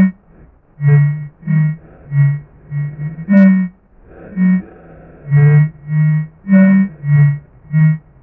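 Creature sound effect for a Zetton-style monster: a run of short electronic bleeps, about a dozen, alternating irregularly between two low pitches at roughly one and a half a second.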